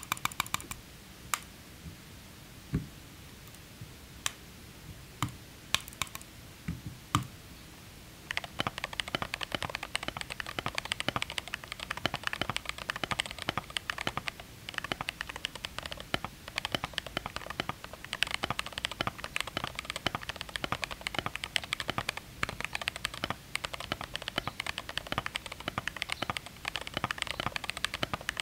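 Glorious GMMK Pro mechanical keyboard with lubed Glorious Panda tactile switches and re-lubed stabilizers being typed on. A few separate clicks come first, then steady fast typing from about eight seconds in.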